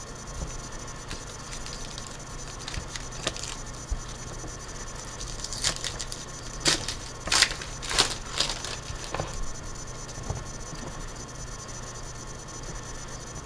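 A shiny foil trading-card pack wrapper is torn open by hand, giving a run of sharp crinkles and tearing in the middle. Lighter rustling and the clicks of cards and packs being handled come before and after.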